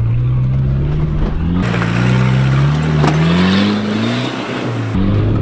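Land Rover Discovery 300Tdi's 2.5-litre four-cylinder turbodiesel pulling hard under load up a steep rocky climb, its revs rising steadily over about four seconds and dropping back near the end. A single sharp knock comes about three seconds in.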